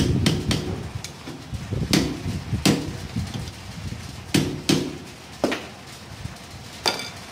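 A hammer striking a long steel drift held against the front-axle centre-pin assembly of an Eicher 364 tractor: about eight sharp metal-on-metal knocks at uneven intervals. The last knock, near the end, rings briefly.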